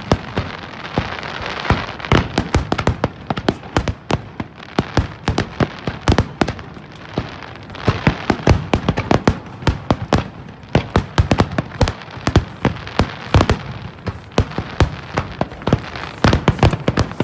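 Fireworks display: a rapid, continuous barrage of sharp bangs, with stretches of dense crackling between the bursts.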